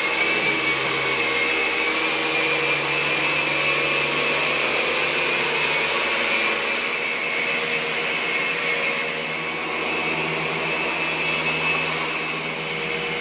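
A vacuum running steadily: an even rushing noise with a constant high whine from its motor.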